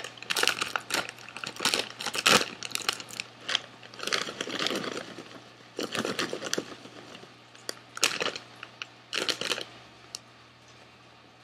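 Crinkly plastic Smartfood popcorn bag rustling and crackling as it is handled and moved about, in irregular bursts that die away near the end.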